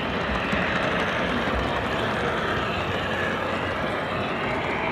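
O scale model train running, a steady rolling noise of its wheels and motor on the track, heard close up from aboard the train.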